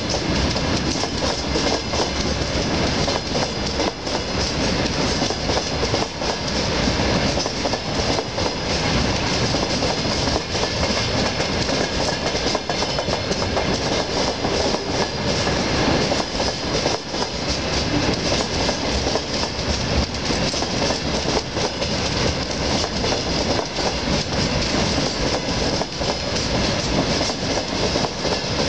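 Long freight train of flat wagons rolling past on the track below: a continuous, steady rumble and clatter of wheels on the rails.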